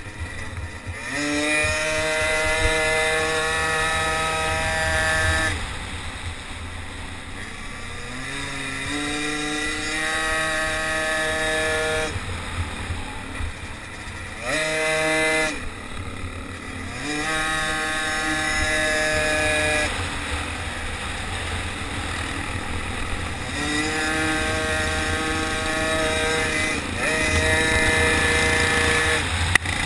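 Small motor bicycle engine at racing throttle. Its pitch climbs as it accelerates out of each corner, holds, then drops when the throttle is backed off, about five or six times. Wind buffets the microphone throughout.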